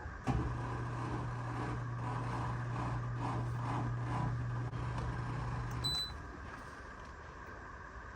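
Frigidaire front-load washing machine starting up after being switched on: a steady electric hum runs for about six seconds, then stops, with a short electronic beep as it cuts off.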